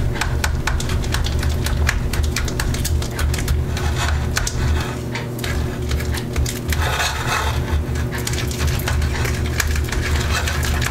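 A chopstick stirring a thick, wet slime mixture of glue and cloud slime powder in a bowl: rapid sticky clicks and squelches over a steady low hum.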